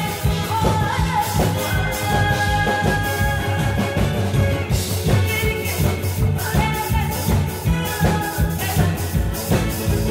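A woman singing into a microphone over an amplified backing track with a steady, driving beat.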